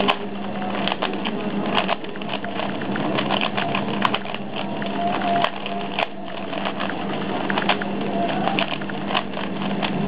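Plastic 3x3 Rubik's cube being turned rapidly by hand during a speedsolve: a fast, irregular clatter of layers clicking and snapping into place, over a steady low hum.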